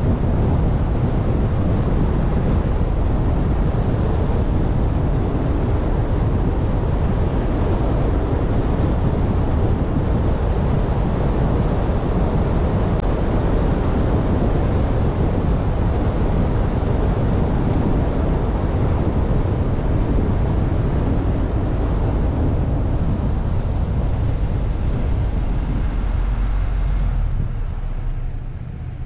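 Steady rush of wind and road noise from a vehicle driving at speed, easing as it slows near the end.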